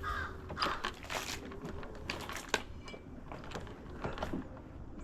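Irregular clicks, taps and knocks of hard objects being handled and moved about.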